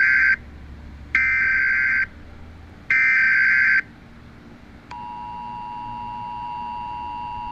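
Emergency Alert System tones. First come the harsh digital data bursts of the header: the end of one burst, then two more, each about a second long with a second's gap between them. About five seconds in, the steady two-tone EAS attention signal starts and holds.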